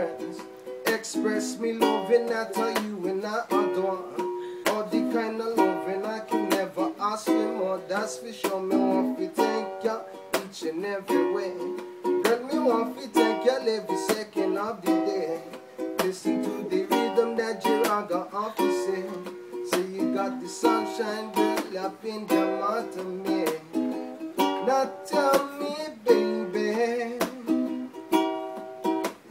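Solo ukulele played instrumentally: quick strummed chords with melody notes picked between them, going on without a break.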